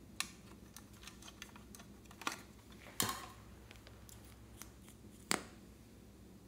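Irregular light clicks and taps of small plastic objects handled by hand, a red plastic clock and a lipstick tube, with a few sharper clicks, the loudest about three seconds in.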